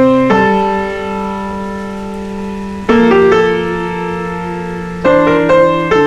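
Background piano music: slow chords struck every couple of seconds and left to ring and fade.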